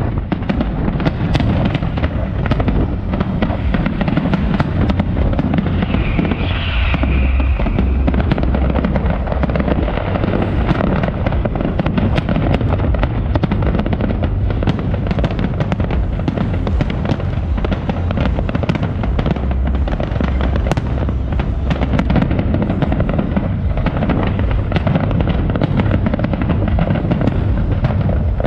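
Aerial fireworks display: a dense, continuous barrage of shell bursts and crackling with a heavy low rumble beneath, never letting up.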